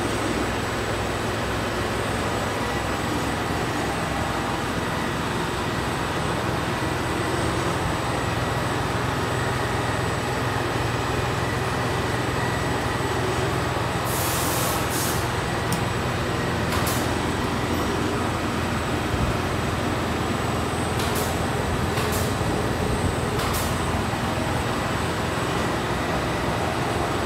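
Steady workshop machinery noise with a low hum, broken by several short bursts of hiss in the second half.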